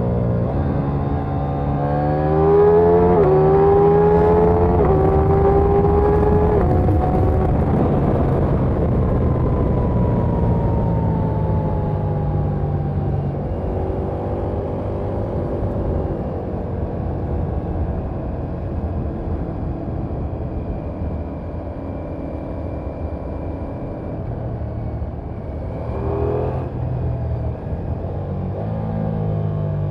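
Ducati Diavel V4's 1158 cc V4 engine heard on board. In the first several seconds it accelerates through the gears, the revs climbing and dropping back at each upshift. Then the revs fall away as the throttle eases, and it runs on steadily at a lower cruise, with a brief rise in revs near the end.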